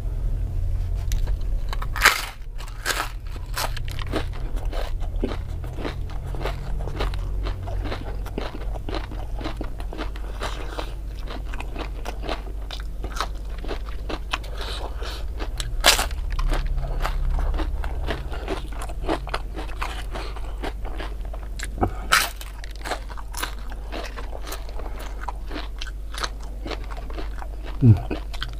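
Close-up crunching and chewing of crispy fried tempeh with raw bird's-eye chillies, a steady crackle of chewing broken by loud, sharp bites about 2, 16, 22 and 28 seconds in.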